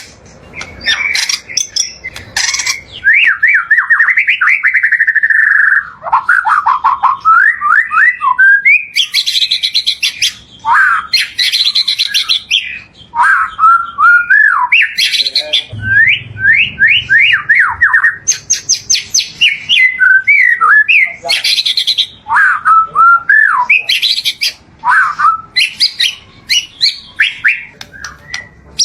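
White-rumped shama (murai batu) singing a long, varied song: quick sweeping whistled phrases and trills alternating with loud harsh, buzzy bursts, with only brief pauses.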